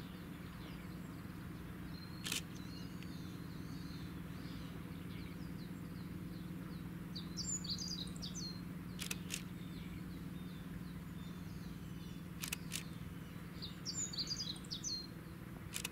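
Small songbirds chirping over a steady low drone, with a busier song phrase about halfway through and again near the end. A few sharp clicks stand out, the first a couple of seconds in.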